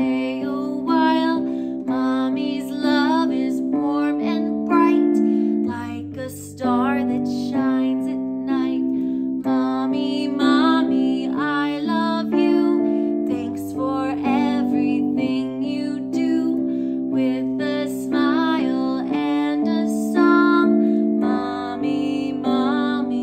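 Gentle children's song music: a keyboard plays held chords that change every second or two under a gliding melody line.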